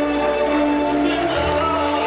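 Ballroom dance music with long held notes over a sustained bass; the bass note changes about one and a half seconds in.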